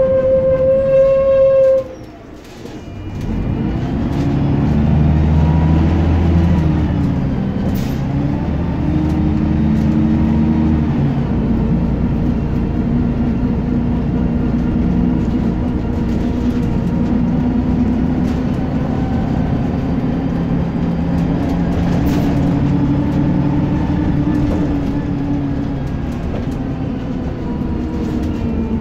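Scania Citizen bus heard from inside the saloon: a steady high tone sounds for about two seconds, then the engine pulls away, rising in pitch twice as the automatic gearbox changes up, and settles into steady running.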